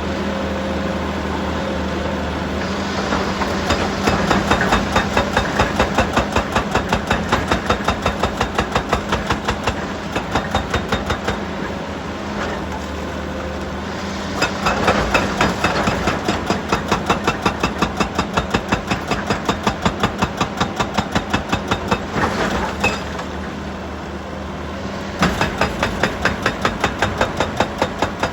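Heavy machinery at work: a steady engine running under rapid, even mechanical hammering, about five blows a second. The hammering stops and restarts a few times.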